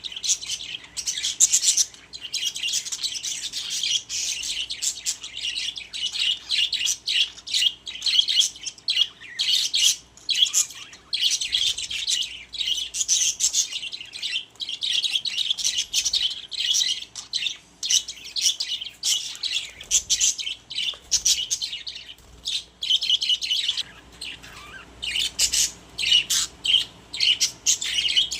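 Budgerigars chattering and warbling continuously, a rapid stream of high chirps and squawks.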